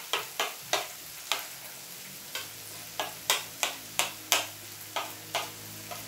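Table knife scraping and tapping against a ceramic plate as peanut sauce and sweet soy sauce are stirred together, in short, uneven strokes about two a second.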